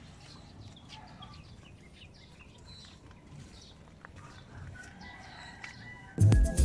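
Faint chickens clucking and a rooster crowing. About six seconds in, loud electronic music with a steady beat suddenly starts.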